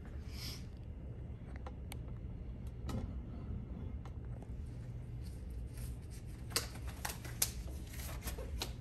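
Steady low room hum with a few scattered light clicks and taps, the clearest about two and three seconds in and three more close together near the end.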